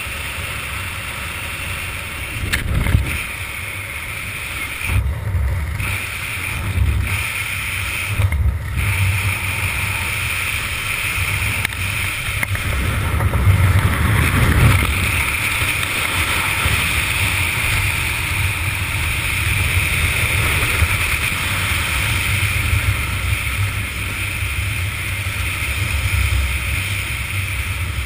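Wind rushing over a helmet camera's microphone during a descent under an open parachute canopy: a steady low rumble with a hiss above it, swelling in gusts several times in the first half.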